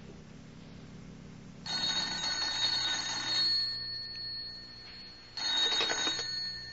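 An old-style telephone bell, a radio-drama sound effect, rings twice, each ring about two seconds long, with a pause between; the second stops near the end as the call is answered.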